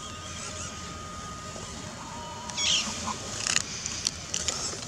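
A small electric 1/18-scale RC crawler's motor and plastic gears whining steadily as it crawls up a stony dirt slope, with a short louder scrape a little past halfway and scattered clicks of tyres and stones after it.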